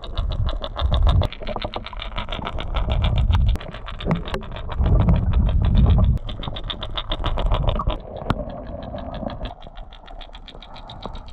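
Rapid, even clicking, about six clicks a second, over low rumbling water noise, as picked up by a microphone underwater; the clicking thins out after about eight seconds.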